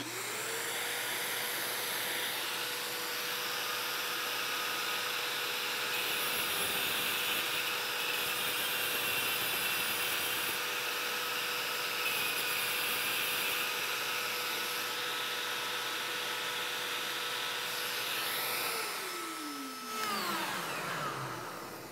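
A Porter-Cable shop vacuum switches on and runs steadily beside a Milwaukee M12 cordless rotary tool spinning a diamond wheel as a TIG tungsten electrode is ground to a point. A brighter grinding hiss comes through for several seconds in the middle, and the motors wind down near the end.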